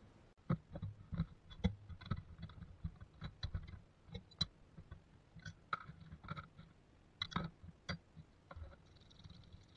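Rusty metal parts of a disassembled Stanley No. 45 combination plane being set down one by one into an empty plastic tub: irregular clicks and clinks of metal against plastic and against other parts.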